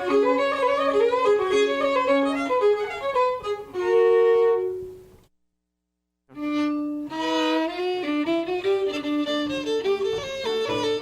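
Traditional Irish fiddle music: one tune ends on a held note about four seconds in. After a second of silence, another fiddle tune starts.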